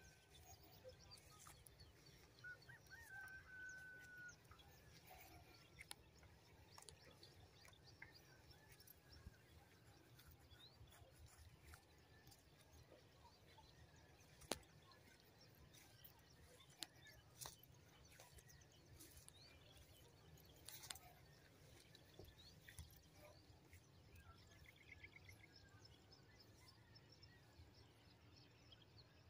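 Near silence: faint open-field ambience with a few faint bird calls, one short whistle about three seconds in, and scattered soft clicks.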